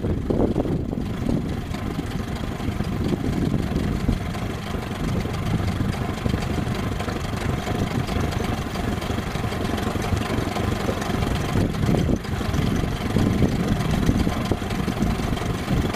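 Small outboard motor idling, a steady low rumble.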